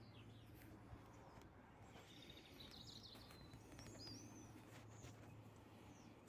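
Near silence: faint outdoor ambience with a few faint bird chirps and a low steady hum.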